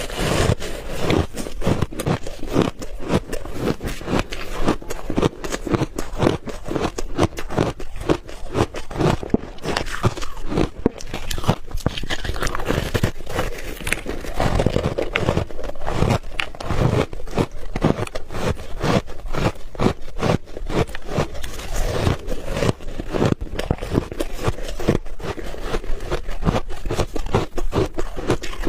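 Someone chewing and crunching refrozen ice balls close to the microphone: a continuous run of sharp cracks and crunches.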